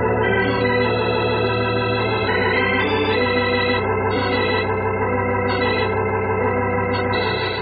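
Organ music bridge between scenes of a radio drama: sustained chords whose upper notes shift every second or so, easing off slightly near the end.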